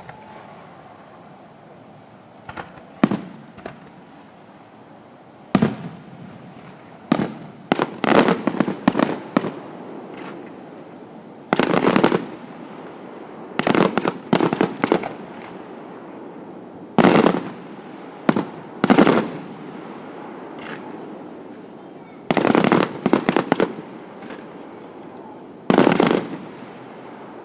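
Fireworks going off in irregular volleys of sharp bangs every few seconds, some volleys breaking into quick strings of crackling pops.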